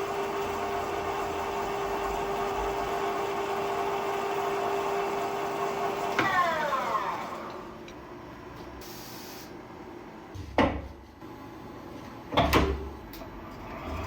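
Lathe running with a steady whine, then spinning down about six seconds in, its pitch falling away. Two sharp clunks follow near the end.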